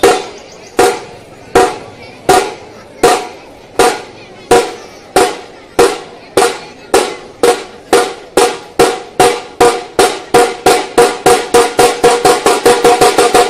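Dhol troupe striking their large barrel drums together, each stroke ringing briefly. The strokes begin about one every ¾ second and speed up steadily into a fast roll near the end, the classic accelerating opening of a dhol-tasha beat.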